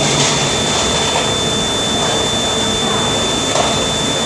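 Steady loud rushing noise of a commercial dish room, with a thin high whine over it, and a few faint clinks as dishes are washed by hand at a stainless-steel sink.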